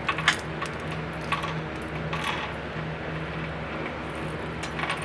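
Grandfather clock chains clinking and jingling against the metal movement as they are threaded into it, in a few short bursts of clinks.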